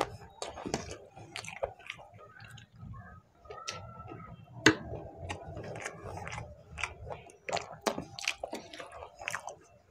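Close-miked eating of spooned mutton pulao rice: irregular wet chewing and lip-smacking clicks, with a sharp click about four and a half seconds in.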